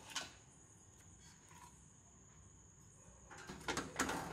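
Mostly near silence, then from about three seconds in a cluster of light clicks and scrapes as an Asus H110M-D motherboard is set into a steel PC case and slid against the rear I/O panel.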